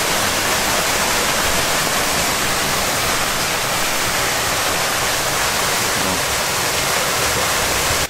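Waterfall pouring, a loud, steady rush of falling water.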